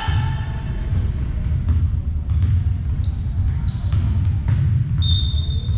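Basketball game play on an indoor court: the ball bouncing, with short high-pitched sneaker squeaks, over a constant low rumble.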